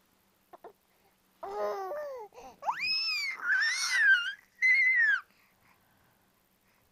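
Infant girl babbling and squealing as she tries out her voice: a few short low coos, then two long, very high squeals that swoop up and down, the second falling away at its end.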